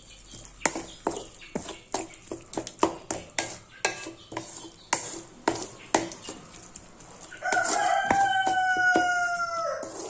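Wooden spatula stirring and knocking against a metal kadai, a quick run of scrapes and taps. About seven seconds in, a rooster crows once: a long, loud call that falls slightly in pitch.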